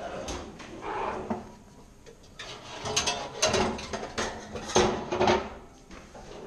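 A kitchen cabinet door opening, then metal pots and pans clanking as they are rummaged through and one is pulled out. Several sharp clanks with short ringing come between about three and five and a half seconds in.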